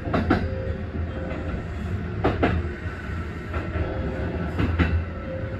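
Kintetsu Urban Liner limited express heard from the driver's cab as it runs into a station: a steady low rumble, with paired clacks of the wheels over rail joints about every two seconds.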